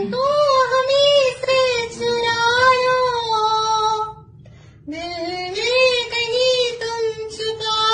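A schoolboy's high, falsetto-like voice making a silly sung wail: two long, wavering held notes with a short break about four seconds in.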